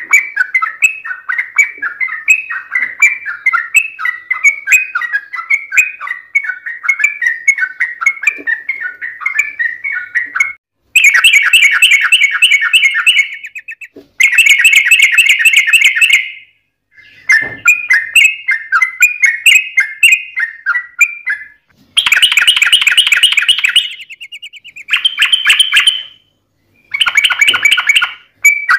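Yellow-vented bulbul (trucukan) singing its loud, bubbly chattering song in long rapid runs. An unbroken run of phrases for about ten seconds, then several denser bursts of a few seconds each, split by short, abrupt breaks.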